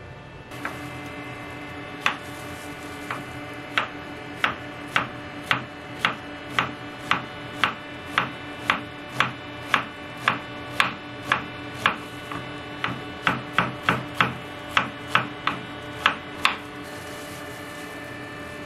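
Chef's knife slicing a red onion on a wooden cutting board, the blade knocking on the board about twice a second and stopping near the end, over a steady hum.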